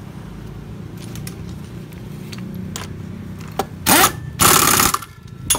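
Scattered light clicks of metal parts being handled over a low steady hum, then two short, loud bursts of noise about four seconds in, the second lasting about half a second.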